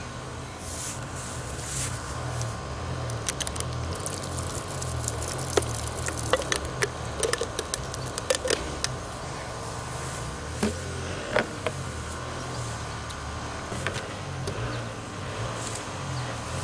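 A plastic jar being handled and set down on a wet wooden board: scattered light clicks, taps and knocks, busiest in the middle of the stretch, over a steady low hum.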